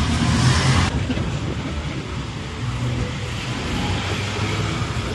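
Engine and road noise of a songthaew, a pickup-truck baht bus, heard from its open rear bench as it drives along, with a steady low engine hum. A louder rush of traffic noise cuts off suddenly about a second in.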